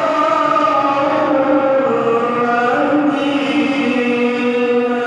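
A voice chanting in long, held notes that step to a new pitch every second or two with hardly a break: vocal practice.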